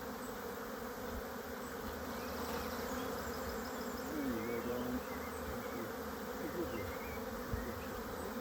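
Honeybees buzzing in a steady hum, with single bees passing close by a couple of times, their pitch briefly sliding.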